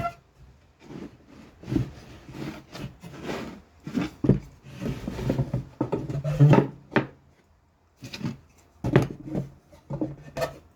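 Wooden fence picket boards being handled and shifted on a workbench: irregular knocks and short scrapes of wood on wood.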